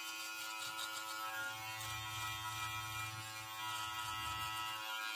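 Brio Beardscape V2 electric beard trimmer running steadily at one even pitch while trimming stubble on the neck.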